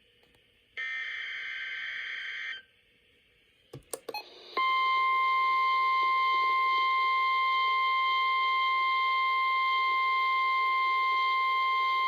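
NOAA Weather Radio emergency alert: about a second in, a two-second burst of SAME digital header data, a harsh warbling screech. After a pause and a few clicks, the steady 1050 Hz warning alarm tone starts about four and a half seconds in and holds, signalling that a warning follows.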